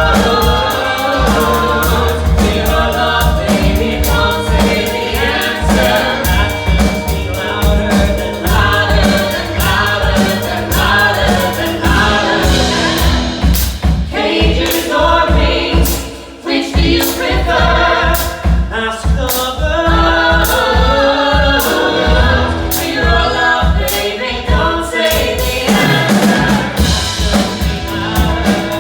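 Music: a group of voices singing together over band accompaniment with a steady beat. The sound dips briefly about halfway through.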